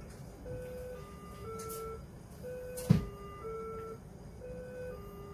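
A simple three-note electronic tune repeating every two seconds, with one sharp knock about three seconds in.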